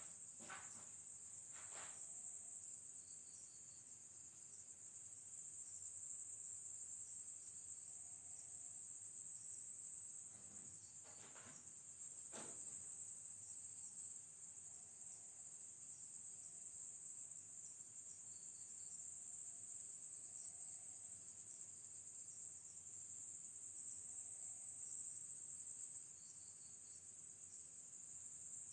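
Steady, high-pitched night-time chorus of crickets. A few faint knocks or steps come in the first couple of seconds and again around eleven to twelve seconds in.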